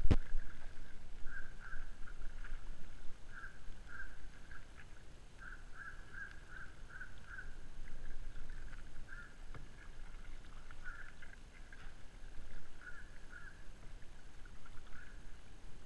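A bird calling in runs of short, same-pitched notes, a few a second, over a steady low rumble of wind on the camera microphone.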